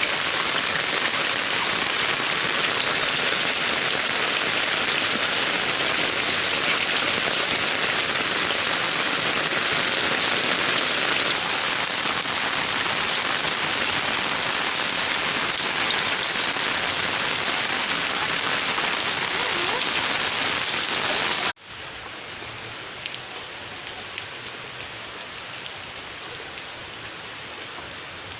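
Heavy rain falling, a dense steady hiss. About three-quarters of the way through it cuts abruptly to a quieter, lighter rain with a few scattered drips.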